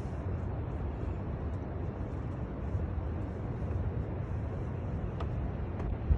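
Wind rumbling on the microphone: a steady, low buffeting noise, with a couple of faint clicks near the end.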